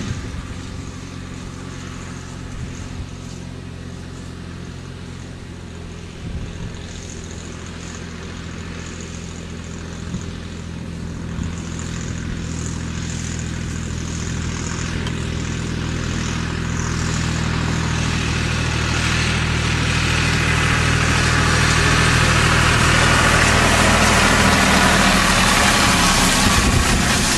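Tractor diesel engine running steadily under load while it pulls a rotary hay rake, growing louder as it comes closer. Over the last few seconds the hiss and rustle of the rake's spinning tines sweeping dry hay joins in.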